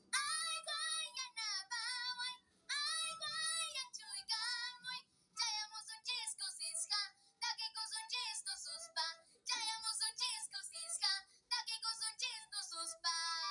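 A young boy singing a Christmas carol in Quechua, in a high voice with vibrato on the held notes. The phrases are separated by short breaths, with little or no accompaniment under the voice.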